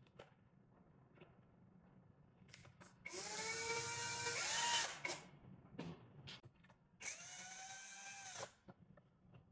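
Electric screwdriver driving in the screws that fix a lock body into a door: two runs of about two seconds and a second and a half, the motor's pitch rising as each starts, the first louder. Light clicks come between them.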